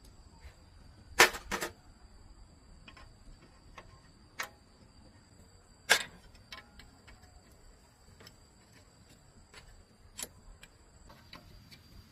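Irregular clicks and knocks of hand tools and metal parts being handled and set down. The loudest are a double knock about a second in, a sharp one near the middle and another near the end.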